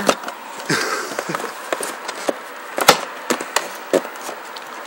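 Handling noise: scattered clicks and knocks, the loudest about three seconds in.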